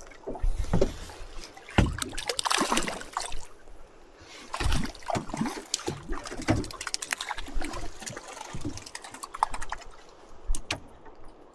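Water splashing and sloshing around a fishing boat on a river, with scattered knocks and clicks.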